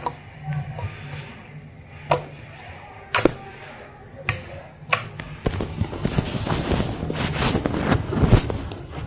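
Homemade slime being squeezed and poked by hand: a few separate sharp pops, then from about halfway through a dense run of crackly, squelching clicks.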